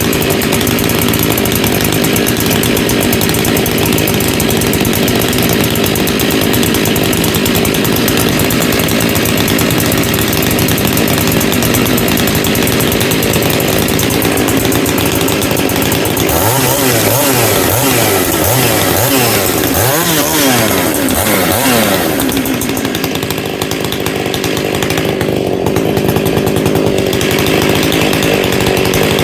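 Large two-stroke chainsaw running hard while cutting firewood. Its engine pitch rises and falls repeatedly around the middle, then holds steady again.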